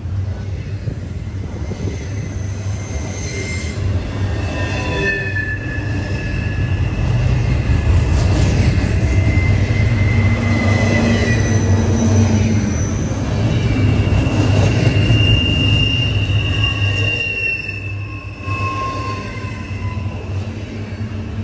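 Freight train cars rolling past with a steady low rumble, with several high wheel squeals coming and going over it.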